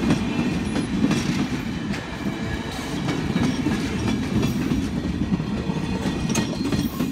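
Streamlined passenger cars rolling past close by: a steady rumble of steel wheels on the rails, with sharp clicks as the wheels cross rail joints.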